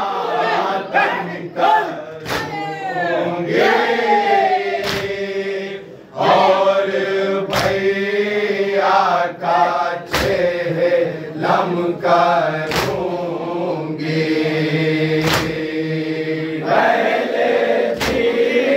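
A group of men chanting a noha in unison, lamenting in long held notes, with sharp hand-on-chest slaps of matam falling in a regular beat about every two and a half seconds.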